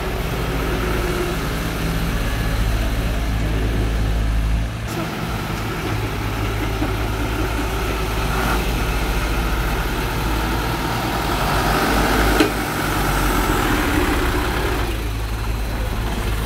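Diesel engines running steadily at low revs: a Volvo EC55C compact excavator, then a TMT dump truck, with the engine note changing about five seconds in. A single sharp knock about twelve seconds in.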